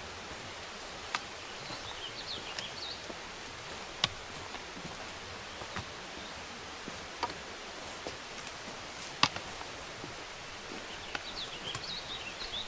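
Outdoor trail ambience: a steady hiss broken by four sharp clicks a few seconds apart, with small birds chirping in quick bursts about two seconds in and again near the end.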